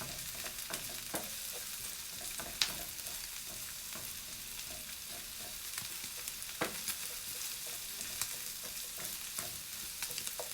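Minced pork with garlic and onion sizzling in an oiled frying pan while being stirred, with occasional sharp clicks of the utensil against the pan.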